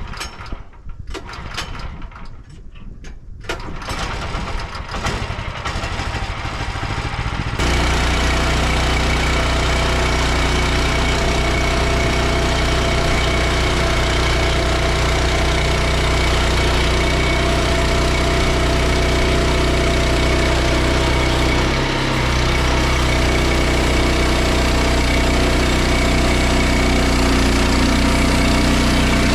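An engine running: irregular knocking that grows louder for the first seven seconds or so, then a sudden jump to a steady, loud running sound, with a brief dip about 22 seconds in.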